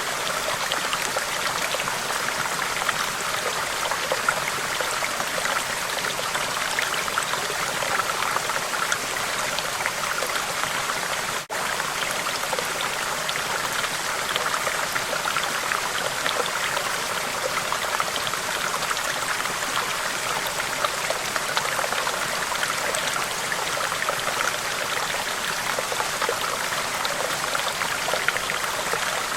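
Steady running water, like a small stream trickling and flowing, with a brief break in the sound about eleven and a half seconds in.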